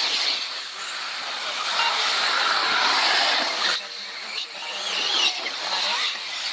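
Radio-controlled model off-road cars racing, a high whirring of motors and tyres that swells as they pass and dips about four seconds in.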